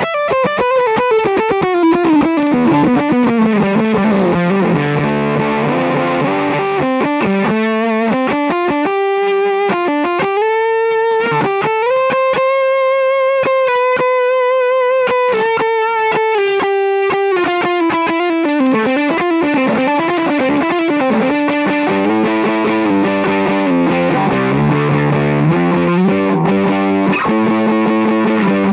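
Fender Jaguar Special electric guitar played through an EarthQuaker Devices Zap Machine, a touch-sensitive germanium/silicon hybrid fuzz pedal, into an Ampeg Gemini I amp. A heavily fuzzed note slides down in pitch over the first few seconds, climbs back to a held note in the middle, then slides down again.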